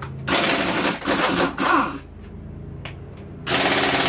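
Cordless impact wrench hammering in short bursts, three in the first two seconds and another starting near the end, backing out the subframe bolts of a Honda CRF450R dirt bike.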